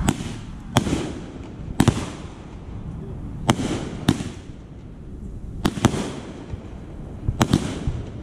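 Consumer aerial fireworks going off: sharp bangs roughly every second, with a quick run of three near the end, each followed by a fading hiss.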